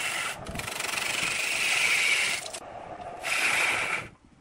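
A hand-held turning tool cutting into a large log spinning on a wood lathe, a loud rasping scrape as shavings fly off. It comes in three passes with short breaks between them and stops about four seconds in.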